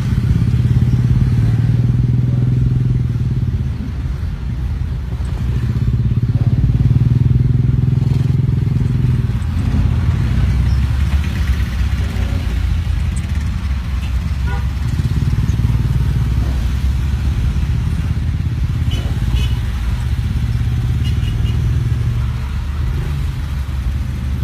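Road traffic heard from inside a moving car: a steady low engine drone, swelling and easing a little, with motorcycle engines nearby.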